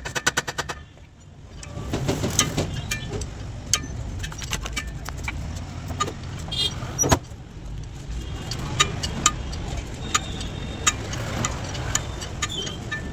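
Truck wheel work: a rapid run of hammering strikes stops about a second in. Then scattered metal clinks and knocks sound over a steady low rumble.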